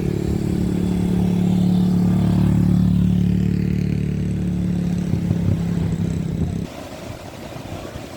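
An engine running steadily with a low, even hum, cutting off abruptly about two-thirds of the way through; a quieter, even noise remains after it.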